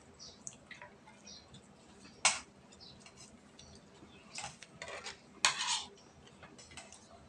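Spoons clinking and scraping against plates while eating: a handful of sharp clinks, the loudest about two seconds in and a cluster around five seconds in.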